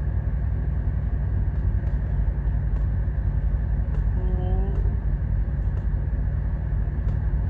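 Steady low rumble of an idling truck engine heard inside the cab. A brief faint pitched sound, like a short hum, comes about four seconds in.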